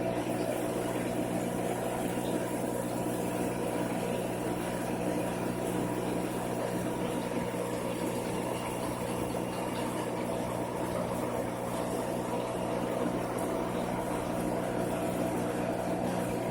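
Steady hum of aquarium pumps and filters running, with a faint wash of moving water.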